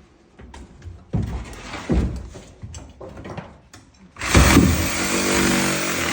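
An engine starts up and runs. It swells unevenly at first, then about four seconds in it turns into a loud, steady rushing run.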